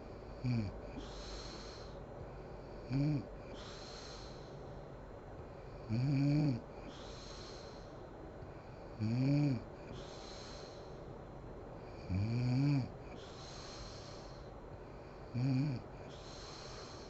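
A sleeping woman snoring in a steady rhythm: six short, pitched snores about every three seconds, each followed by a breathy hiss of breath.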